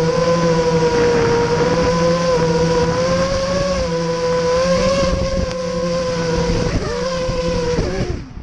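Brushless motors of an ImpulseRC Vortex racing quadcopter (XNova 2204 2300KV motors on KISS 30A ESCs) whining at a steady pitch with small wobbles as the throttle shifts. Near the end the pitch drops and the motors spool down and stop.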